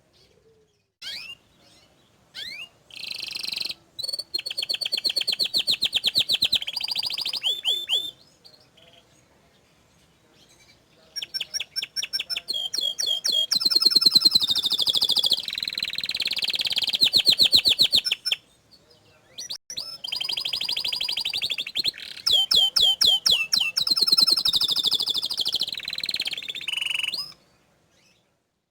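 Domestic canary singing in long runs of fast rolling trills and chirps, three extended phrases with short pauses between them.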